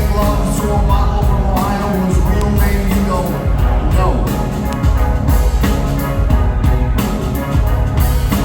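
Live alternative-rock band playing an instrumental passage, with a steady drum beat over a heavy bass line and no vocals.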